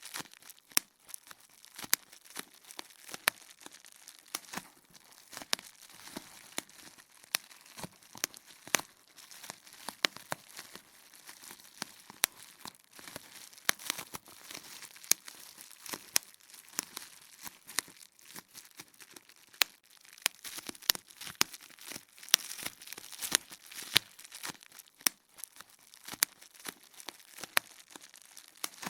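Bubble wrap being popped: irregular sharp pops, several a second, over the crinkling of the plastic sheet being handled.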